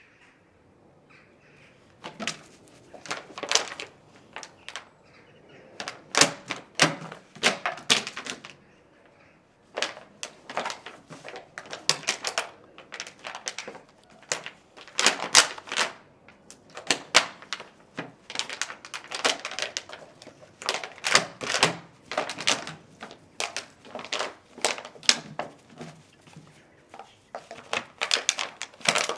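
Empty plastic bottle crackling and clicking in irregular bursts as a puppy bites at it and paws it over the grass, barely able to grip it with newly changed teeth. It starts about two seconds in, with a couple of short pauses.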